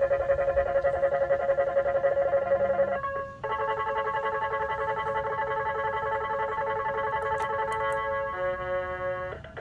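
Circuit-bent Protech toy keyboard playing glitchy electronic tones, held as steady chords of several pitches. The tones drop out briefly about three seconds in and shift to a new set of pitches near the end.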